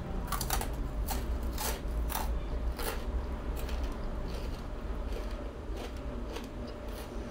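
Close-miked crunching of fried crispy rice being bitten and chewed. There are many sharp crunches in the first three seconds or so, then fewer and more spread out as the chewing goes on.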